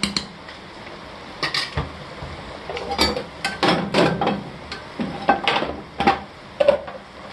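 A kitchen utensil knocking and clinking against the side of a metal cooking pot, in an irregular string of sharp clinks while the pot is stirred.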